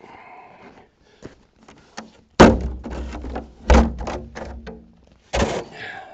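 Knocks and scrapes of a camera and a light on a rope being lowered down a well casing and bumping against its ribbed walls: three loud knocks, the first about two and a half seconds in, amid smaller taps.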